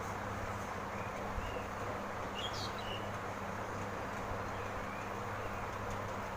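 Steady background hum and hiss of room noise, with a faint short chirp about two and a half seconds in.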